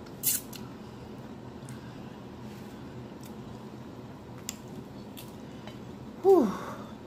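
Eating sounds: a sharp wet lip smack as sauced fingers are licked, then faint clicks while fried chicken is pulled apart by hand. Near the end comes a short falling vocal sound from the eater.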